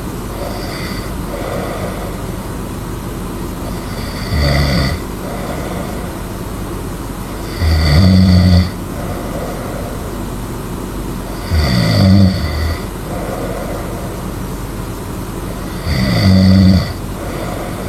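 A sleeping person snoring loudly: four rattling snores on the in-breath, each about a second long and about four seconds apart, with fainter breaths between them. A steady background hiss runs underneath.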